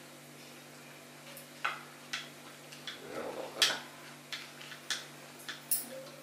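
Plastic spoon clicking and scraping against a plate of food, about nine short sharp clicks at an uneven pace, the loudest a little past halfway.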